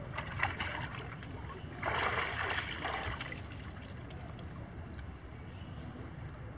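Water splashing as macaques move through a shallow pool and climb out onto stone steps: a few small splashes, then a louder burst of splashing about two seconds in that lasts just over a second.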